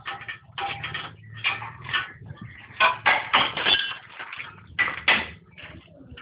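Irregular metallic clanking and knocking, roughly two to three knocks a second, over a steady low hum of running machinery.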